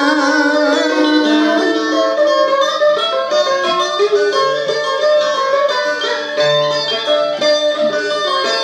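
Music: an instrumental interlude led by plucked strings, playing a run of short notes. A held sung note with wide vibrato trails off about a second in.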